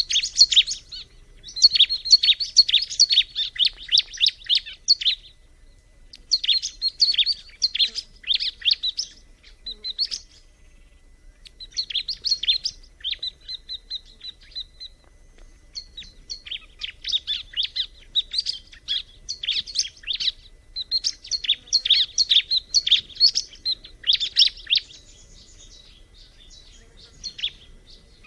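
Bar-winged prinia (ciblek) singing: phrases of rapid, high chirps lasting a few seconds each, broken by short pauses.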